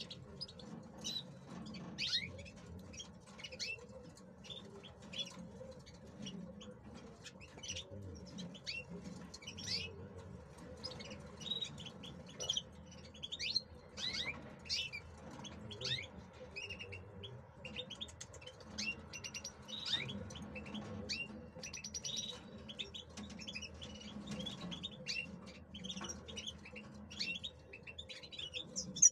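European goldfinch chirping and twittering: many short, sharp high notes, several falling in pitch, coming in irregular clusters over a faint steady low hum.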